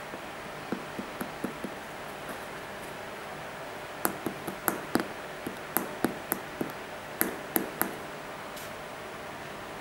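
A fingertip tapping and clicking on the sole and carbon-fibre shank plate of an Air Jordan 12 sneaker: a few light taps about a second in, then a quicker run of about fifteen sharper clicks from about four to eight seconds in, over a steady hiss.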